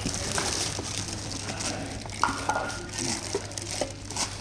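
Transparent plastic mixer-grinder jar lids being opened and handled: scattered clicks, taps and rustling of plastic.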